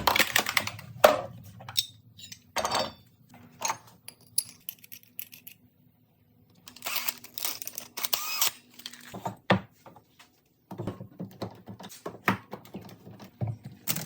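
Irregular knocks, clicks and clatter of tools and wood being handled on a bench, with about a second and a half of rubbing partway through.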